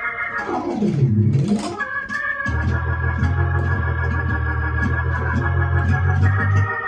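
Electronic keyboard playing gospel praise chords in an organ-like tone. Near the start it makes a quick glide down the keys and back up, then holds a full chord over a long, low bass note.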